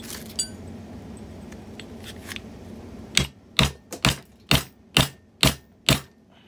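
A ball-peen hammer strikes a socket seven times, about two blows a second, driving a new oil seal flush into an outboard motor's lower-unit plate. A few light clinks of the parts being set in place come before the blows.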